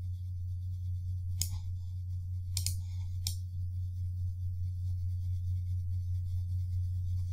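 Steady low electrical hum, with a few sharp computer-mouse clicks: one about a second and a half in, a quick double click a second later, and one more shortly after.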